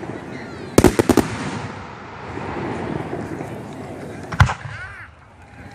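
Aerial fireworks bursting: a quick cluster of about four sharp bangs about a second in, then one more loud bang a few seconds later.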